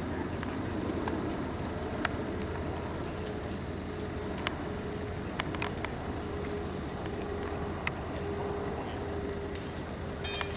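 A large diesel engine running steadily at a low hum, with a faint steady tone above it and a few sharp clicks scattered through.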